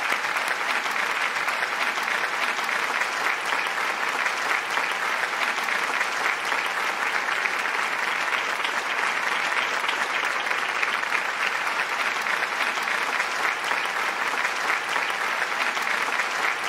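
Audience applauding: many hands clapping in a dense, steady wash at an even level.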